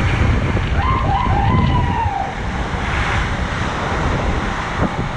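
Category 4 cyclone wind and driving rain, a loud steady rush with heavy wind buffeting on the microphone. A faint wavering high tone comes through briefly between about one and two and a half seconds in.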